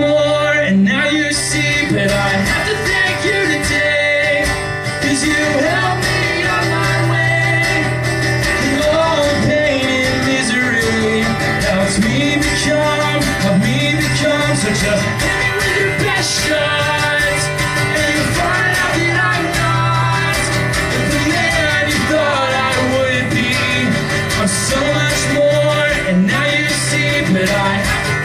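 Live acoustic guitar playing a song, steady and continuous, possibly with a voice at times.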